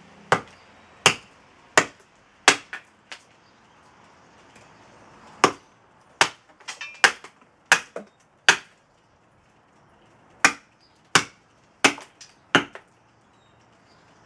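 Axe chopping into a very dry, seasoned Osage orange branch on a chopping block: about seventeen sharp chops, roughly one every half second to second, in three runs with short pauses between.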